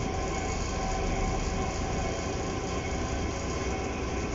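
Steady mechanical hum with a low rumble and faint steady tones, unbroken, room background noise from a running machine.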